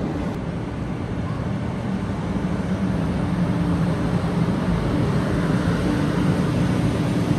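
JR West 500 series Shinkansen pulling out of the platform: a steady low hum that grows a little louder as the train gathers speed.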